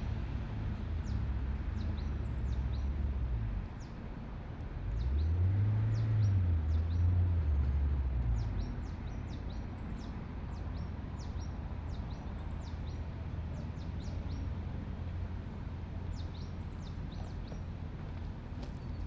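Small birds chirping repeatedly over a steady low rumble that swells louder between about five and eight seconds in.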